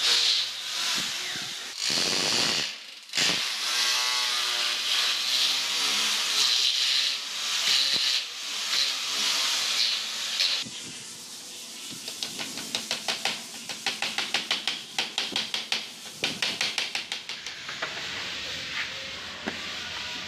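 Corded electric drill running under the trigger as it bores into a uPVC window frame, its pitch rising and falling. It stops about halfway through, and a rapid run of clicks follows for several seconds.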